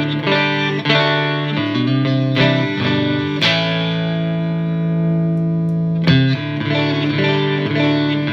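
Strat-style partscaster electric guitar played clean on its neck single-coil pickup through a Marshall JVM210 2x12 combo amp: picked notes and chords, with one chord struck about three and a half seconds in and left ringing for a couple of seconds before the playing picks up again.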